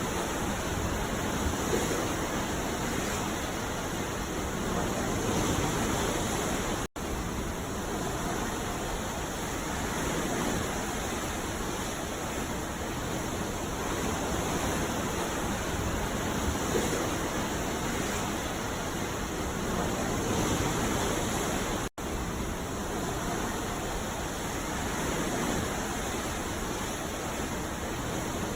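Sea waves washing in a continuous, even rush with slow gentle swells. The sound cuts out abruptly for an instant twice.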